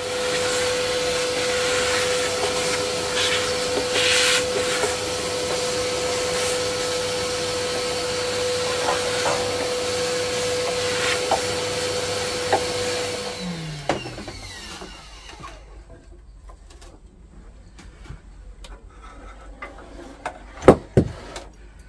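Workshop vacuum running with a steady whine as its hose sucks up sawdust. It is switched off about 14 seconds in and winds down. Near the end there are two sharp knocks as the scroll saw is handled on the bench.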